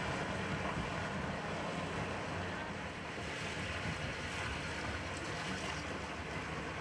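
Boat engine running low and steady, with water and wind noise on the microphone.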